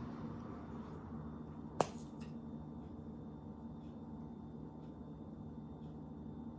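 Quiet room hum with one sharp click a little under two seconds in, followed by a few faint small taps, from gingerbread kit pieces being handled and set down on the table.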